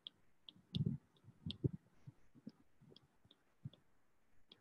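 Faint, irregular clicks and light taps of a stylus writing on a tablet screen, about two or three a second.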